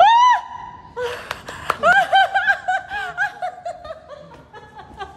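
High-pitched laughter: a short rising squeal at the start, then a run of quick 'ha-ha' bursts from about two seconds in that trail off toward the end.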